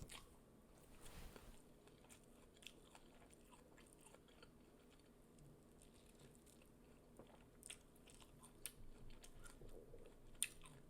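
Faint chewing from someone eating close to the microphone, with scattered small mouth clicks and crunches and a few sharper clicks near the end.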